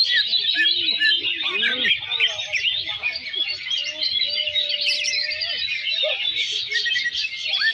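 Many caged songbirds, cucak ijo (green leafbirds) among them, singing and chirping at once in a dense, unbroken chorus, the din of a bird-song contest field. A few lower sliding tones run underneath.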